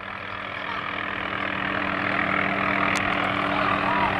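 Small helicopter flying toward the listener, its rotor and engine making a steady hum that grows gradually louder.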